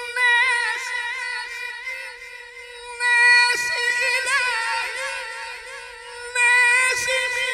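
Melodic Qur'an recitation (tilawat) by a qari: one voice drawing out long, ornamented held notes, with new phrases starting about three seconds in and again near the end.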